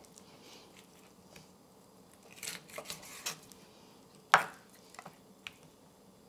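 Chef's knife cutting raw chicken leg quarters apart at the joint on a wooden cutting board: a few scattered cuts and knocks of the blade on the board, the sharpest about four seconds in.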